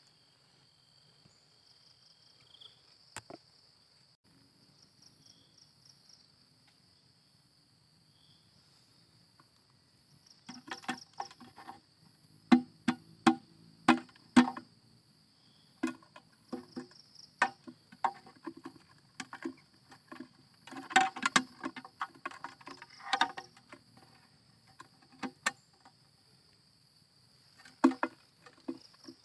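Insects chirring steadily in a high, even drone throughout. From about ten seconds in, a run of sharp plastic clicks and knocks as the snap-on lid and frame of a clear plastic insect box are handled, with a few more near the end.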